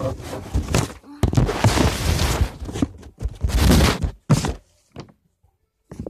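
Rubbing and knocking of a phone being handled right against its microphone, in several long scraping stretches, then a couple of short taps near the end.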